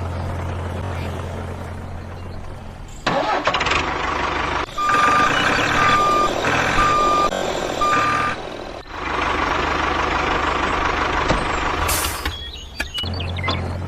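Truck engine running with a reversing alarm beeping four times, about once a second. A steady low hum comes before and after, and there is a sharp click near the end.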